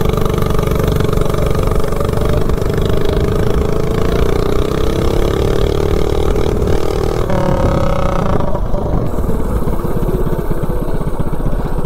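Duromax 208cc single-cylinder minibike engine with a header pipe, run at full throttle on a VM22 carburetor with an undersized 95 main jet. The engine note holds fairly steady while the bike accelerates, with wind rush on the microphone. About seven to eight seconds in, the note changes and the engine falls back as the throttle is eased and the bike slows. The rider says the engine doesn't like the small main jet, meaning it is running too lean.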